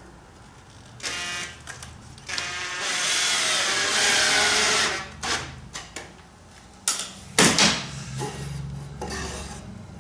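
Cordless drill running into the wooden upright of a boat dolly: a short burst about a second in, then a longer run of about two and a half seconds whose whine drops in pitch as it loads. After that come a few sharp knocks of wood and tool being handled, the loudest a little past seven seconds.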